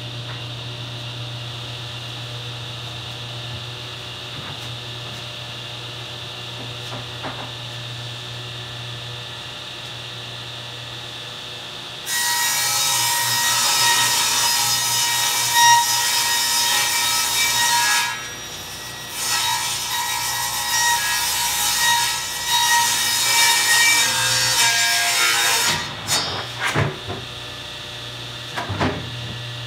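Craftsman table saw running, its blade ripping lengthwise through a sheet of 3/4-inch red oak faced plywood. The motor hums steadily at first; a little under halfway in the blade bites into the wood and the loud cutting noise runs for several seconds, breaks off briefly, resumes, and ends a few seconds before the end, leaving the steady hum.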